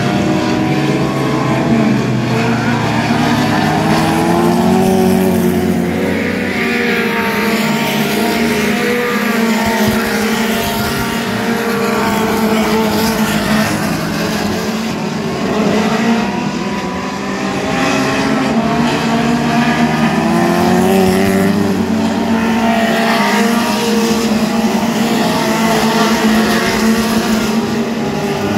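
Several mini stock race cars' four-cylinder engines running flat out on a dirt oval, revving up and down through the turns, their pitch rising and falling as each car passes.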